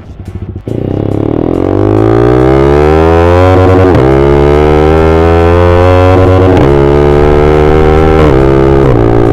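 Yamaha R15M motorcycle with an SC Project aftermarket exhaust accelerating hard: the engine note jumps in under the throttle and climbs for about three seconds, then drops at three gear changes, around four, six and a half, and eight seconds in.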